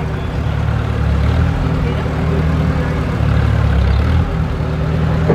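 Vintage farm tractor's engine running at low speed as it is inched along a balance-beam seesaw, its low note swelling twice as the driver gives it a little more throttle.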